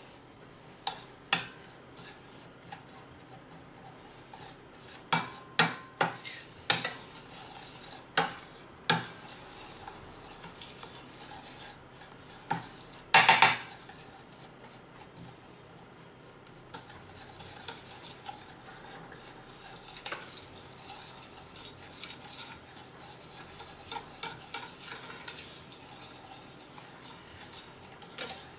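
Butter and brown sugar being stirred in a stainless steel skillet over a gas flame: a utensil scrapes and clinks against the pan, with several sharp knocks in the first nine seconds and a louder clatter about thirteen seconds in. After that, quieter steady stirring over a faint sizzle.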